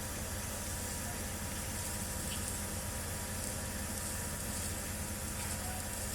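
Steady low engine drone of heavy machinery with an even hiss over it, unchanging throughout.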